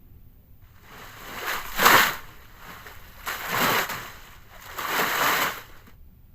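Water splashing and sloshing in three surges, each about a second long and spaced about a second and a half apart; the first is the loudest.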